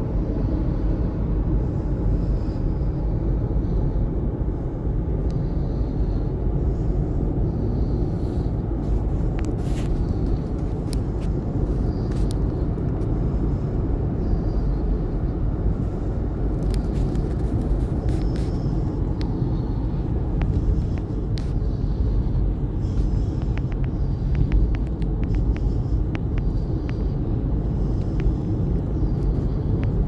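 Steady road and engine rumble heard inside a moving Honda car's cabin. Scattered faint ticks come in from about a third of the way through.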